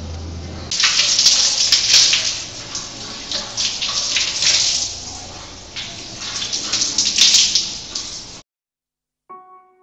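Water running from a wall tap and splashing onto a tiled floor, a steady hiss that starts about a second in and cuts off suddenly near the end.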